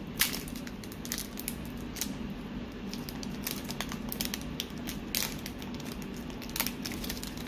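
Foil booster-pack wrapper crinkling as fingers work it open, in scattered small crackles and clicks.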